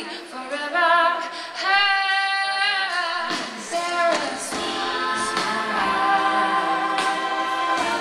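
A woman singing a slow soul ballad live with her band, amplified over the venue's speakers and heard from far back in the audience. Long held notes over sparse backing, with the accompaniment filling out about three seconds in.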